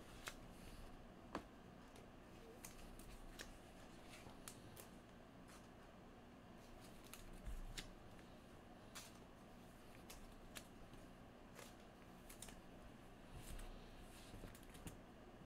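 Faint handling of trading cards in plastic sleeves: irregular light clicks, taps and soft rustles as the cards are sorted by hand.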